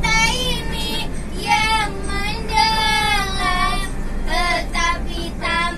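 A song with a high female singing voice, sung lines with sliding pitch, over the steady low rumble of a moving bus.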